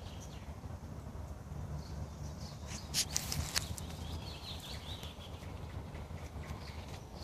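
Outdoor ambience through a phone's microphone: a steady low wind rumble, two sharp clicks a little over half a second apart about three seconds in, and faint bird chirps after them.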